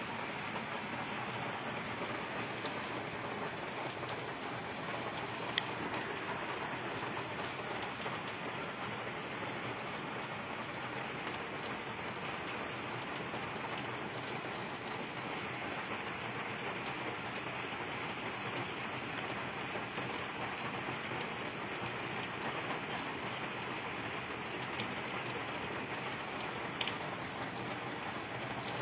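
Steady rain falling, with two sharp single taps, one about six seconds in and one near the end.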